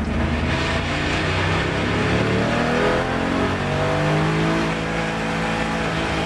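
Race car engine heard from inside the cockpit, under full throttle as the car accelerates, its pitch rising through the revs and then holding a steady high note for the last couple of seconds.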